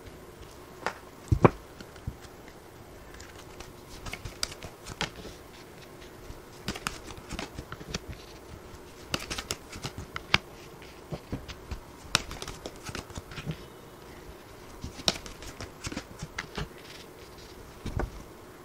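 Tarot cards being handled and dealt onto a table: irregular soft taps, flicks and slides of card stock as cards are drawn from the deck and laid down one by one.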